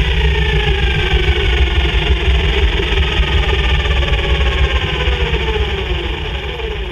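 Single-seater racing car's engine running at low revs under a steady low rumble, with a whine that falls steadily in pitch as the car rolls slowly to a stop. The sound fades away near the end.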